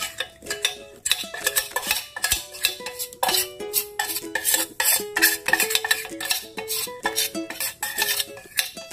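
A spatula stirring chocolate brownie batter and scraping against a metal mixing bowl in repeated short strokes, over background music.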